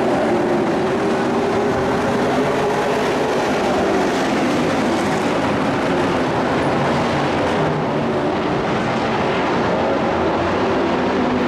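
A pack of dirt-track race trucks running at speed. Several engines sound at once as a loud, continuous drone whose pitch wavers as they work around the oval.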